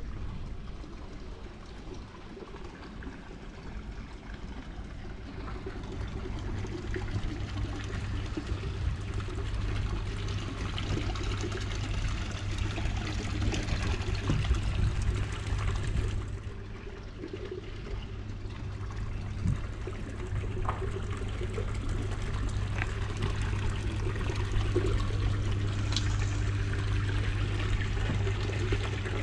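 Water pouring and trickling, over a steady low hum; the sound dips briefly a little past the middle.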